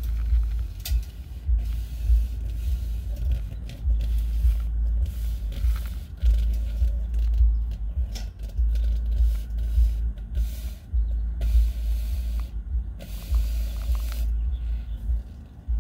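Unsteady low rumble with on-off bursts of hiss: handling and rubbing noise from a chimney inspection camera moving through a flue.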